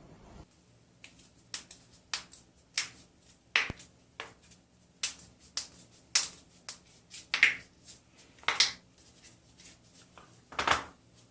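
A run of about twenty sharp joint pops and cracks at irregular intervals, some single and clean, some short crunchy clusters of pops.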